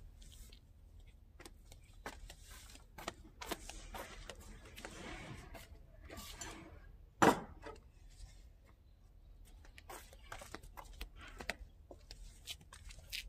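Scattered light clicks and knocks, with one sharp clatter about seven seconds in as a tray of glass tea glasses and a teapot is set down on a wooden table.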